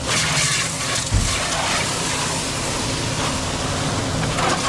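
High-pressure water jet from a pressure-washer wand hissing against a car's underbody, over a steady motor hum. A brief low thump about a second in.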